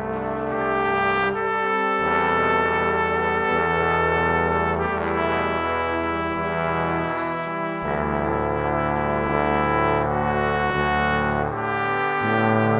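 Background music of slow, sustained chords that shift every few seconds.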